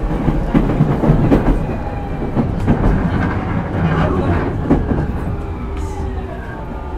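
Interior running sound of a JR East E231-1000 series electric train: wheels clattering over rail joints with a steady underfloor rumble. About five seconds in the clatter eases and a faint, slowly falling whine from the Hitachi IGBT VVVF inverter comes through as the train slows.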